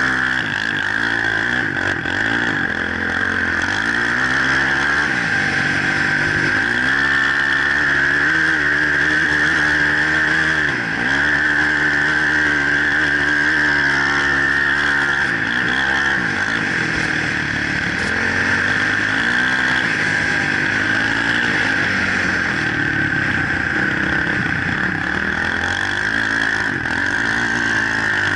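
Off-road vehicle engine running hard under load, its pitch dipping and climbing back several times, over a steady high whine.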